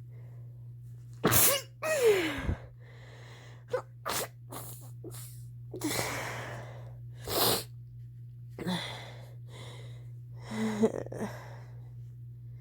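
A person with a head cold stifling a series of sneezes: short, muffled bursts spread through, the loudest about one and a half to two seconds in.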